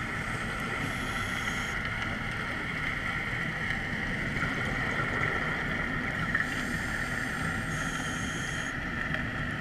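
Steady underwater noise picked up by a dive camera in its housing, with a constant high hum, and faint high-pitched tones twice, about a second in and again around seven seconds in.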